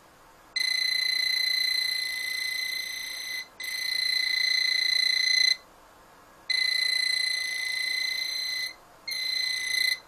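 UNI-T UT12A non-contact voltage detector sounding its alarm, a steady high-pitched tone, as it is held near the live wires feeding a contactor. The tone sounds in four stretches of about two to three seconds each, cutting out briefly between them.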